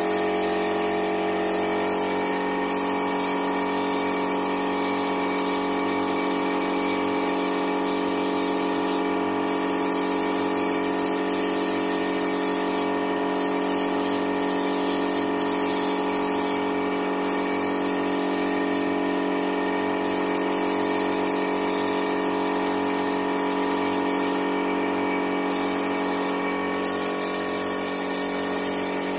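Compressed-air paint spray gun hissing steadily as it sprays, over the unchanging hum of the air compressor feeding it. The hiss breaks off briefly about eight times.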